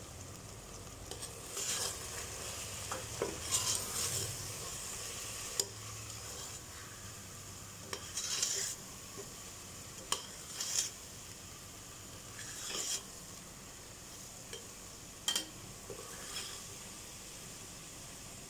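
Metal ladle stirring and scraping chicken and spice masala in a steel pressure cooker pot, in irregular scrapes with a few sharp clinks of ladle on pot. A faint steady sizzle of the masala frying in oil runs underneath.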